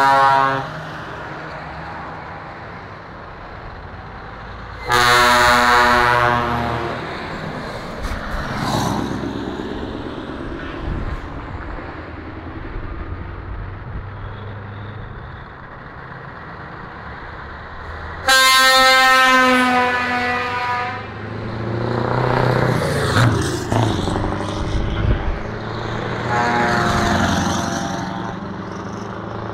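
Truck air horns sounding in three long blasts of about two seconds each, the last one fainter, over the steady running of passing diesel trucks.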